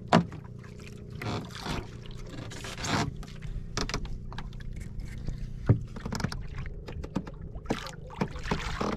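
Sounds aboard a small wooden outrigger fishing boat at sea: a steady low hum with water and wind noise, and a sharp knock just after the start and another about six seconds in, amid scattered handling clicks as a handline is worked.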